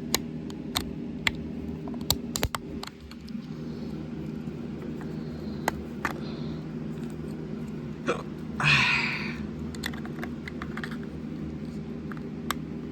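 Scattered sharp clicks and taps from handling a weather radio, with a hiccup about eight and a half seconds in, over a steady low hum.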